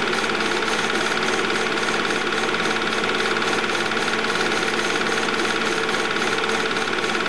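Movie projector running a reel of silent home-movie film: a steady, very loud mechanical clatter with a constant hum.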